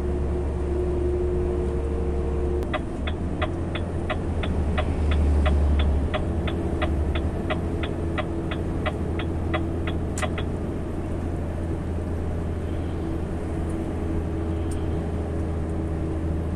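Lorry's engine droning steadily, heard from inside the cab. From about three seconds in to about ten seconds, a rapid, even ticking of about three ticks a second, like a turn-signal relay, which stops with a sharp click.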